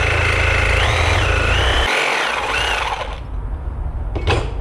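Kobalt cordless angle grinder cutting a ring off a steel exhaust ball-socket pipe clamped in a vise: a loud, high whine that shifts in pitch as the wheel bites, stopping about three seconds in, followed by a single click near the end.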